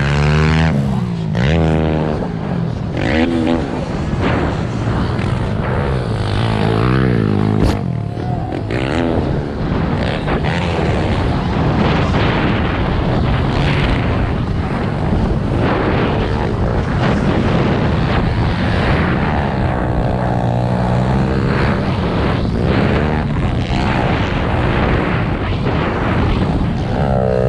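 Gasoline pit bike engines revving up and down again and again as they race close by, over heavy wind rush on a helmet-mounted camera.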